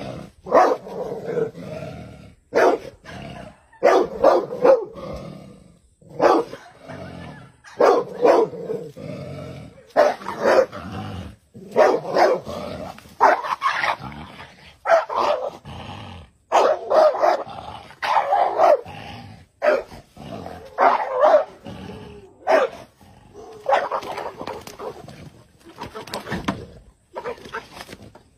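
A pit bull–type dog barking at a cobra: loud barks in quick runs, over and over, with short pauses between the runs.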